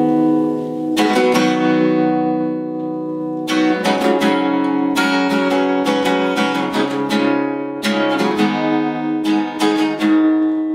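Acoustic guitar played solo: chords strummed and left to ring, with quicker strokes in the middle and a chord ringing out near the end.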